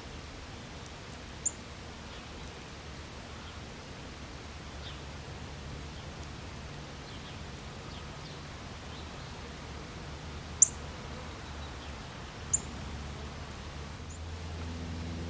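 Backyard birds calling, with scattered faint chirps and three short, sharp, high chirps standing out (one early, then two close together in the second half), over a steady low background hum.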